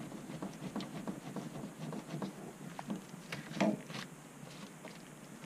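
Handling noises: scattered small clicks and knocks as a gloved hand works at the battery leads and strap inside a boat console's battery compartment, with one louder knock a little past halfway.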